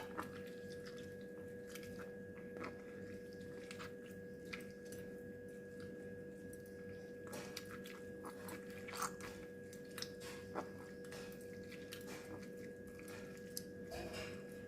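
Faint wet squelching and small crackles as blended, steamed star fruit pulp is squeezed by hand through a mesh cloth to press out its juice, over a steady low hum.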